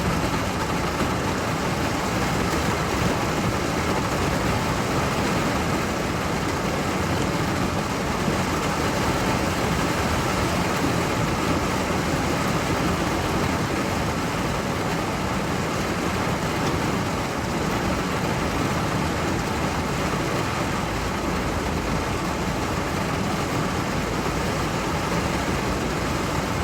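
Steady rain falling, an even hiss at a constant level with no single impacts standing out.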